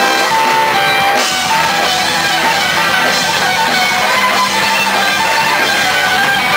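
Ska band playing live: electric guitar over bass and drums, loud and continuous.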